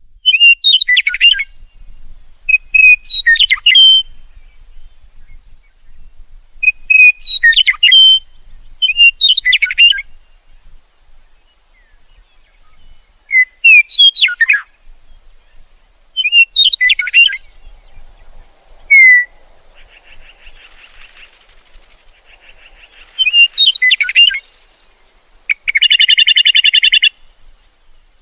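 A lark singing: short phrases of high chirps and warbles repeated every two or three seconds, with a loud buzzing trill near the end.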